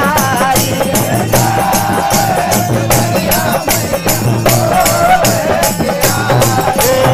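Live Hindi devotional bhajan: a man singing the melody over jingle-ring tambourines shaken on a steady beat, with a low sustained accompaniment underneath.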